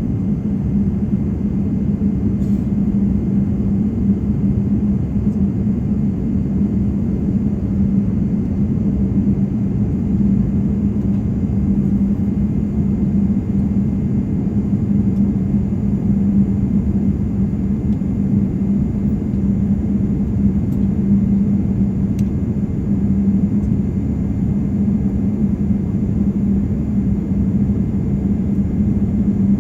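Steady cabin noise inside a Boeing 787-9 airliner: an even rumble of engines and airflow with a constant low hum.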